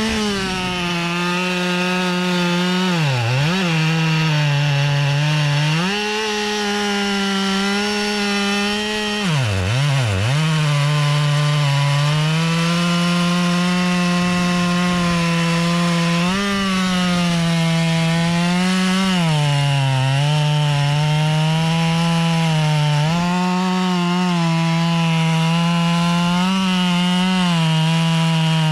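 Husqvarna 572 XP two-stroke chainsaw running near full throttle while bucking wood. Its pitch sags as the chain loads in the cut and climbs again as it frees, with two deep drops in revs about 3 and 10 seconds in before it picks back up.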